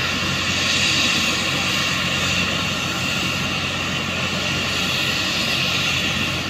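Helicopter engine and rotor running steadily.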